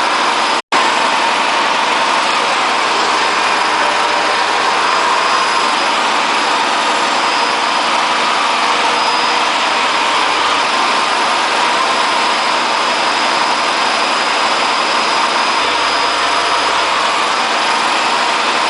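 Hotpoint Aquarius WF540 washing machine in a high-speed spin, a loud, steady mechanical rumble from its broken drum bearings. The sound cuts out for an instant about half a second in.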